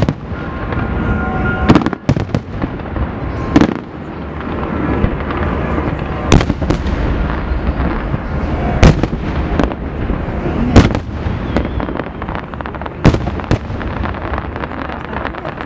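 New Year fireworks bursting: sharp bangs about every two seconds over a continuous rumble and crackle of many other bursts.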